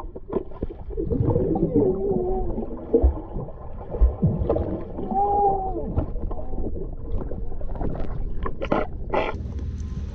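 Muffled underwater sound in a swimming pool, heard through a submerged camera: a low rumble with bubbling, clicks and knocks, and a few wavering tones about a second long, early on and again about five seconds in.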